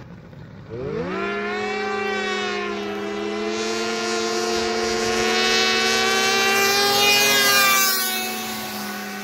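Snowmobile-engined crosskart at full throttle with a second small vehicle. The engine note shoots up in pitch about a second in, then holds a steady high pitch while growing louder as they approach. It drops in pitch and fades as they pass near the end.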